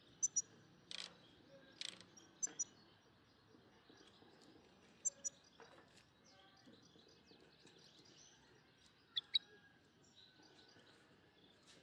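Faint, short, high chirps of small birds, often in quick pairs, scattered a few times over a low background hiss.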